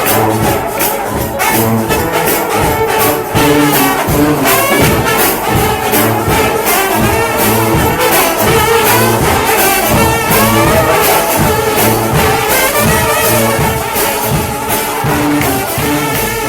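Gospel band playing instrumentally, with horn lines over a steady drum beat.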